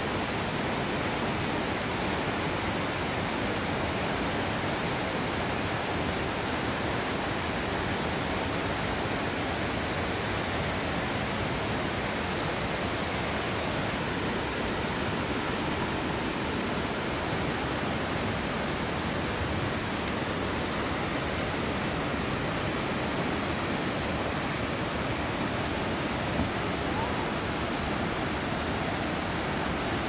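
The Aare river rushing fast through a narrow rock gorge: a steady, even noise of turbulent white water that does not change.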